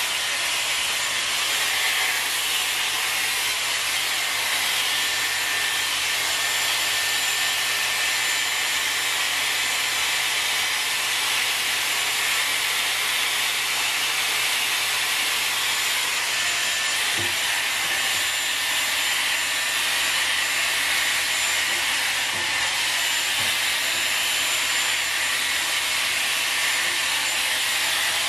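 Hot-air styling brush blowing steadily through hair: a constant rush of air with a thin high whine from its motor.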